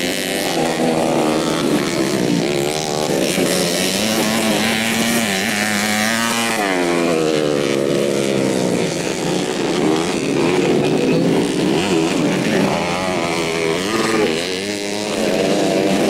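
Modified 125cc four-stroke underbone race motorcycles being ridden hard on a dirt motocross track. Several engines overlap, revving up and down in pitch as the riders work the throttle through the course.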